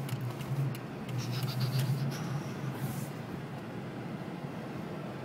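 Car cabin noise while driving slowly over a snow-covered road: a low engine and tyre drone with rubbing and scraping, stronger in the first few seconds. A short run of light clicks comes about a second and a half in.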